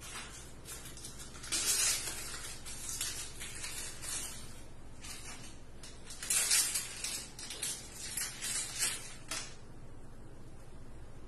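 Crinkling and rustling of a small plastic or paper wrapper being handled and opened by hand, in two spells: a short one about a second and a half in, and a longer one from about six to nine and a half seconds.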